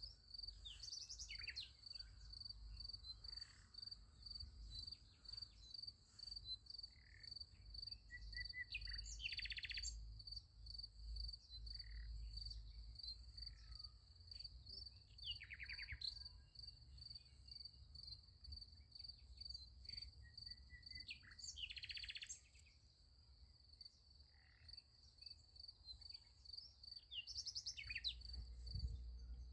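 Crickets chirping in a steady, evenly pulsed high trill, with birds calling briefly over it several times.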